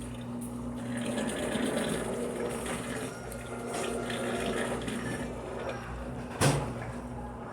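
Electrolux Perfect Wash 16 kg washing machine running with water rushing into or sloshing in the drum over a steady hum. One sharp knock about six seconds in.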